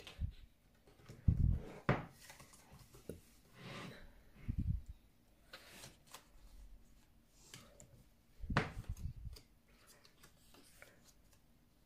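Pages of a glossy album photobook being turned and handled: several short paper rustles and flaps. Between them come a few low puffs of breath on the microphone.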